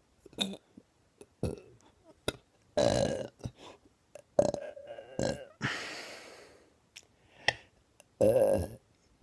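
A man burping over and over: several separate burps of different lengths, with the loudest near three seconds in, one drawn out for about a second from about four and a half seconds, and another near the end. Short clicks fall between them.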